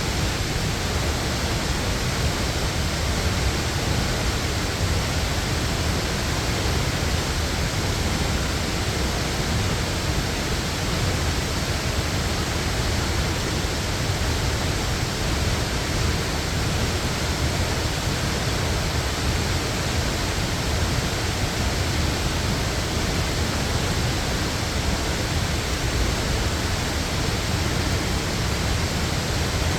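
Waterfall rushing steadily: an even, unbroken roar of falling water with a strong deep rumble beneath it.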